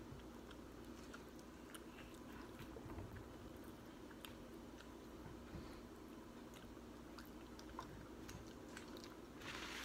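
Faint chewing and small clicks of eating sauced chicken wings, picked apart by hand, over a steady low hum. A short rustling noise comes just before the end.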